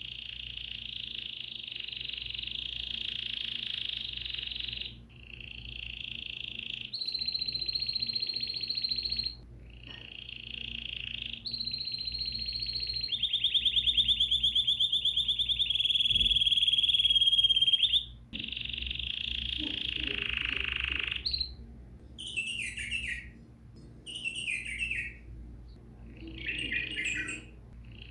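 Songbird song: long rapid trills, each held for several seconds, then a few short falling chirped phrases near the end.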